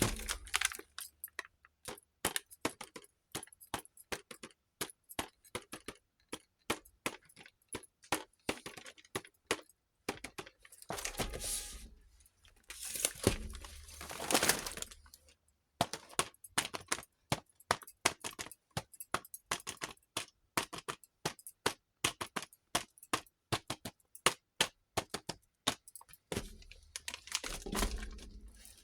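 Small plastic toy kitchen pieces clicking and tapping as they are handled and set down, in quick irregular clicks. Packaging crinkles in a few longer stretches.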